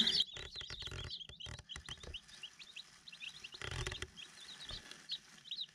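Newly hatched chicks peeping: many short, high cheeps, soft and scattered throughout. A few faint rustles come in the first second and a half.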